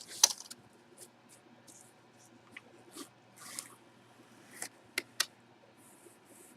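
Box being popped open and unpacked by hand: scattered rustles and light clicks of packaging being handled, with two sharp clicks about five seconds in.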